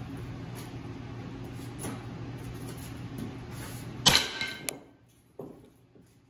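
A sledgehammer strikes a welded spring-steel axe head once about four seconds in, with a sharp metal-on-metal clang and a brief ring. A duller knock follows about a second later. A steady low hum runs underneath until the strike.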